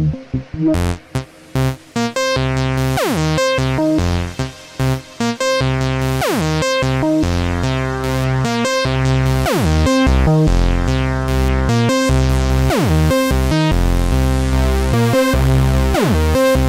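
Erica Synths Bassline DB-01 bass synthesizer playing a sequenced bassline through the Nightverb stereo reverb. It starts as short choppy notes with gaps; from about five seconds in it becomes a continuous reverberant wash with repeating falling sweeps.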